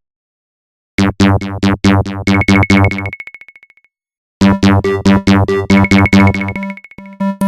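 LG MG180 mobile phone ringtone: a short synthesized melody of quick notes over a bass line. It starts about a second in, trails off in fading repeats of one high note, stops, and plays the phrase again about halfway through.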